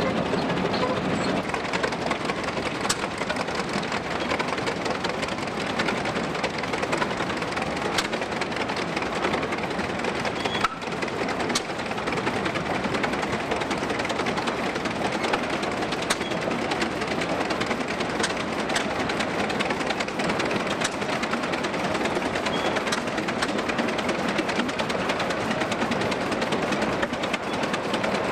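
Early-twentieth-century tractors driving past on dirt: first a steel-tracked crawler, then a big steel-wheeled C. L. Best tractor. Their engines and steel running gear make a steady mechanical noise, with a brief break about eleven seconds in.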